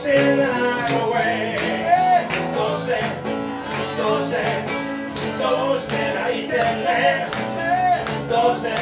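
Live small band playing: an acoustic guitar and an electric bass keep up a steady groove, with a man singing over them.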